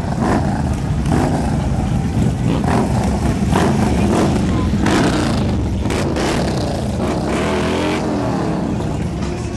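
Several Harley-Davidson bagger motorcycles with V-twin engines rumbling as they ride slowly past in a line, throttles opening and closing as they move off.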